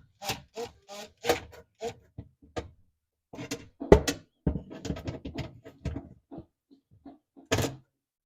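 A series of short knocks and clicks of metal parts and a tool being handled in an oven, irregular, with a sharp knock about four seconds in and another near the end.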